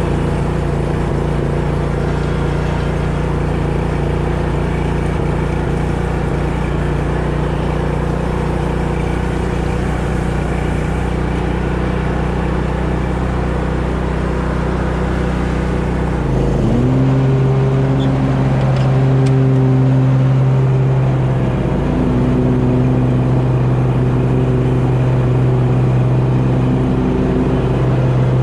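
Engine of a 2020 Simplicity Courier zero-turn riding mower running steadily while mowing. About 17 seconds in, the engine note changes and gets a little louder, then holds steady.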